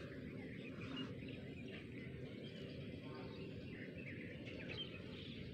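Small birds chirping, many short scattered calls, over a steady low background rumble.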